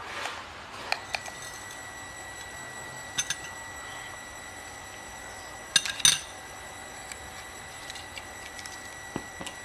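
Metal spoon clinking and tapping against a small glass jar and a glass bowl while dry sambal is spooned out, a handful of light clinks with the loudest pair about six seconds in.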